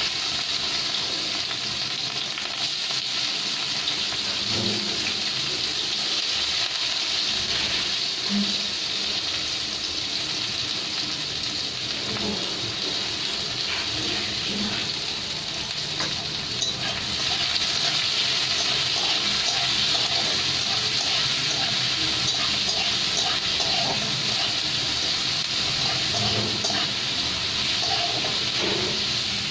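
Chopped onions sizzling in hot oil in a kadhai over a cumin tempering: a steady frying hiss that grows a little louder about halfway through.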